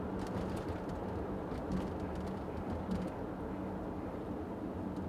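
Steady engine and road noise of a car heard from inside the cabin while it drives slowly, with a low hum and a few faint ticks.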